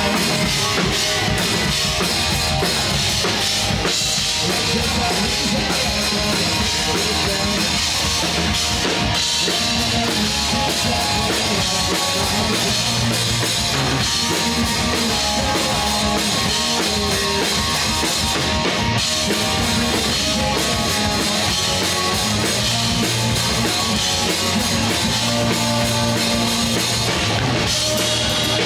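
Live rock band playing an instrumental passage without vocals: electric guitar, electric bass and a drum kit, at a steady, loud level throughout.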